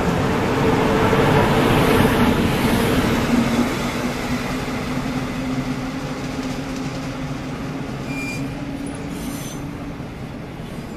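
An S-Bahn push-pull train of x-Wagen coaches with a DB Class 111 electric locomotive at the rear passes and pulls away. The rolling rumble of wheels on rail is loudest about two seconds in, then fades as the train recedes, with a steady hum running through it.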